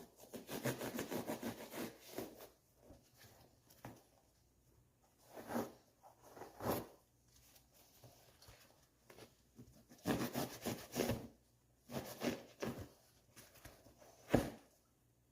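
Serrated bread knife sawing through polyurethane seat foam: quick runs of back-and-forth strokes, several a second, broken by pauses and a few single strokes.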